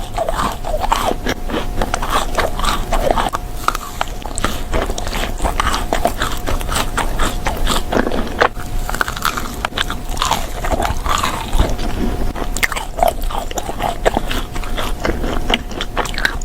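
Close-miked eating sounds: a person biting and chewing food, with a steady run of crunchy clicks and smacks.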